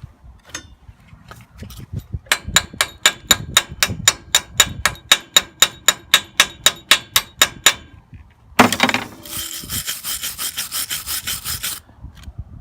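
Rapid, evenly spaced scraping strokes on steel, about four a second, ringing slightly. A few seconds later a welder crackles steadily for about three seconds while tacking the hinge pieces on, then stops abruptly.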